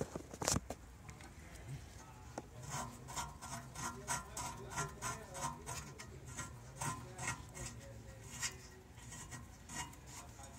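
Hand scraping on the metal brake hub and caliper parts: a couple of sharp clicks at first, then rhythmic scraping strokes about two or three a second.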